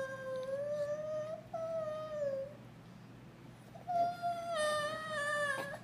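A baby's drawn-out whimpering hum, a long held note that breaks off about two and a half seconds in. A second held note, slightly higher, starts about four seconds in and runs almost to the end. The whimper is the fussing of a tired, unwell infant.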